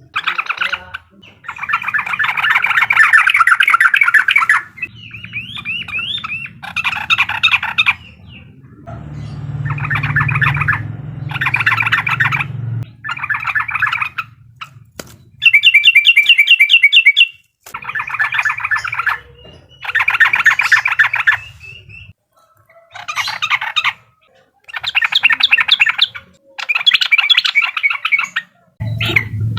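Yellow-vented bulbul (trucukan) calling in the rapid chattering 'uklik' style, in repeated bursts of about one to two seconds with short pauses between them.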